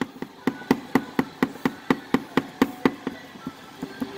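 Clay bar rubbed in quick short strokes over leftover decal glue on car paint, giving a sharp tick on each stroke, about four or five a second, growing fainter and less regular near the end.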